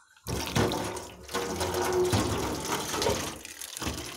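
Water running and splashing from a tap, starting abruptly a moment in, with small knocks mixed in.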